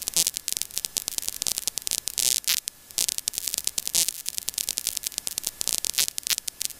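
Crackling static with a faint hum on the aircraft's radio and intercom audio feed: dense, irregular clicks and pops between transmissions.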